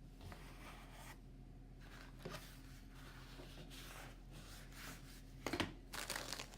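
Faint rustling and rubbing of MRE packets and plastic pouches being handled, with a sharper knock and a few crinkles near the end.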